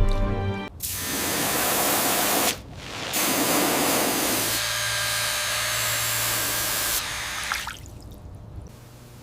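A hissing spray, as from a jet of air or water against metal, in two long bursts: a short one under two seconds and a longer one of about four seconds with a low hum beneath it.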